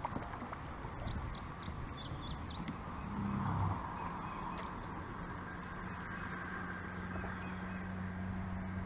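Open-air ambience on the water: a small bird sings a quick run of high chirps about a second in, and a steady low drone sets in a few seconds later under a low rumble.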